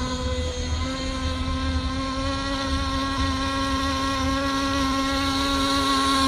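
3.5 cc two-stroke glow engine of a radio-controlled FSR-V racing boat running flat out, a steady high-pitched whine that barely changes in pitch as the boat speeds across the water.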